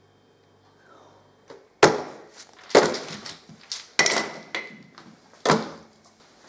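Small wooden tokens dropped into an open suitcase, clattering against the lining and a cardboard box. Four sharp clatters come over about four seconds, each followed by a scatter of smaller clicks, after a nearly silent first second and a half.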